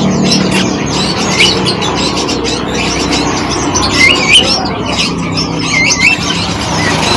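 Songbirds chirping and whistling, several short curling calls overlapping, the clearest about four to six seconds in, over a steady low hum.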